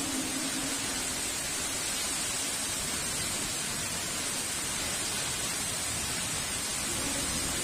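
Heavy rain falling steadily, an even hiss with no thunder.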